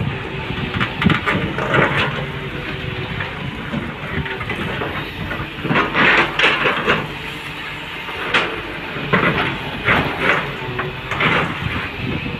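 Excavator diesel engine running steadily, with repeated short bursts of noise and clatter as the machine works.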